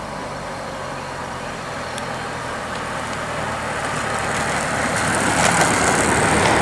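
An SUV following a time-trial cyclist approaches at low speed. Its engine hum and the road noise of the tyres and bicycle wheels grow steadily louder as they draw near.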